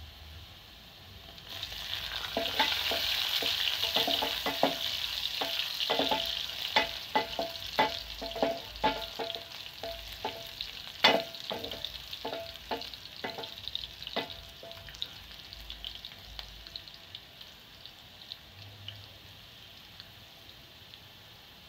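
Sliced onions sizzling in hot oil in an aluminium pot, the sizzle swelling about a second and a half in. A wooden spoon stirs them, knocking against the pot in a run of irregular clicks with a faint metallic ring, until about fifteen seconds in, when the stirring stops and the sizzle settles lower.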